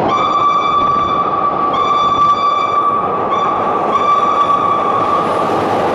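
Chicago CTA subway train pulling into an underground station and running past the platform: a loud rumble of the cars with a steady high-pitched tone over it, broken by a few short gaps.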